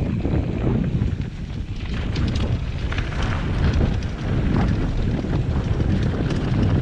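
Wind buffeting a helmet-mounted camera's microphone during a fast mountain-bike descent, with the tyres crunching over loose gravel and the bike rattling in scattered clicks.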